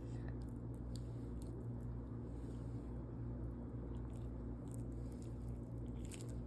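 Hands squishing and kneading wet blue slime mixed with small balls: soft squelches with scattered little clicks and crackles, over a steady low hum.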